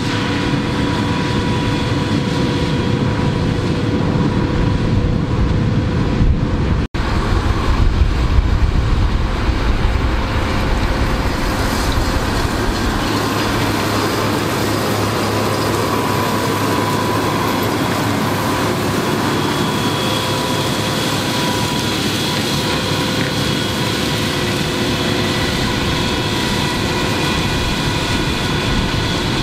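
Fendt Vario 820 TMS tractor's six-cylinder diesel running steadily under load while its Dragone butterfly mulcher's rotors chop a standing dry cover crop: a continuous mix of engine noise and mulcher whirr with a few held tones. The sound cuts out for an instant about seven seconds in.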